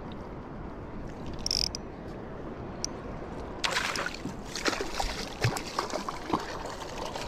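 Water splashing and small knocks around a plastic sit-on-top fishing kayak as a hooked fish is worked up to the hull, over a steady low rumble. The splashing and clicking grow busier about halfway through.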